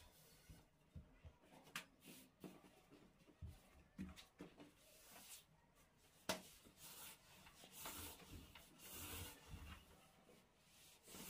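Faint rubbing and a few light, sharp taps from hands-on work with baklava dough, the sharpest tap about six seconds in and the rubbing strongest near the end.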